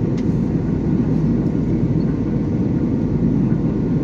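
Airliner cabin noise in flight: the steady, deep rush of engines and airflow heard from inside the cabin.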